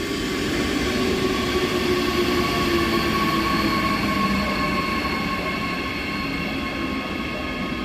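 Electric train pulling into the platform, its drive giving off steady whining tones over the rumble of the wheels on the rails.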